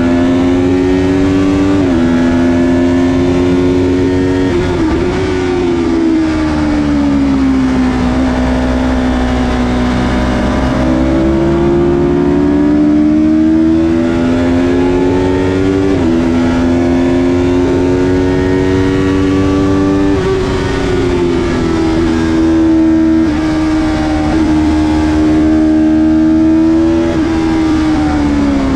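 Yamaha YZF-R3's 321 cc parallel-twin engine running hard on track, heard from the bike itself. Its pitch climbs under throttle and drops sharply at each upshift, about two and sixteen seconds in, and falls away in long slides where the bike slows for corners.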